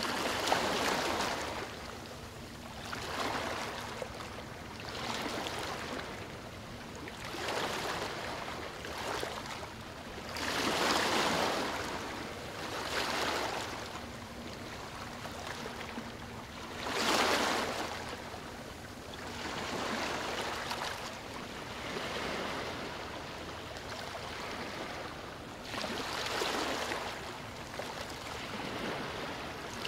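Water washing in slow swells, each rising and fading over two to three seconds, like waves on a shore.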